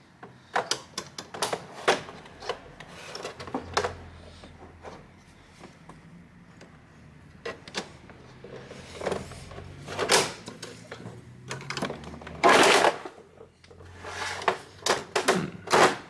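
Plastic clicks and knocks from an all-in-one computer's display panel being worked back into its frame with a flat-head screwdriver. The clicks come irregularly throughout, with a louder, longer clatter about twelve and a half seconds in.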